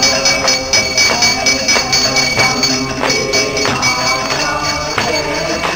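Devotional aarti singing with a bell ringing continuously and a steady beat of about two strikes a second.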